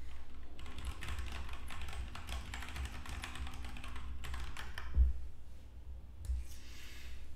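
Fast clicking of typing on a computer keyboard, with one sharper click about five seconds in.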